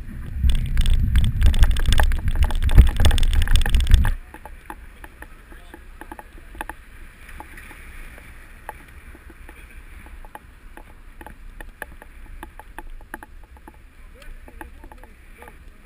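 Wind buffeting and road rumble on a bicycle-mounted camera's microphone for about four seconds, cutting off suddenly. After that, quieter riding noise with many small irregular clicks and rattles from the moving bicycle and camera mount.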